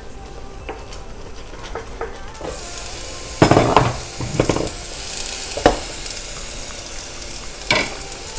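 Food frying and sizzling in a pan, the sizzle starting about two and a half seconds in, while a spoon stirs and knocks against the pan four times.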